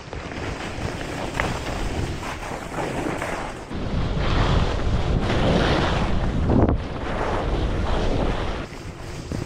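Wind rushing over the microphone of a skier's action camera, mixed with the skis hissing and scraping over packed groomed snow. It gets louder and softer in surges as the skier turns.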